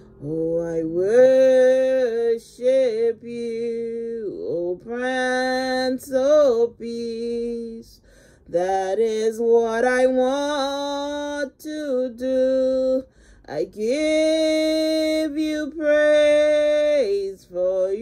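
Slow worship song sung by a woman's voice in long held notes with a slight waver, phrase after phrase, with short breaks between phrases.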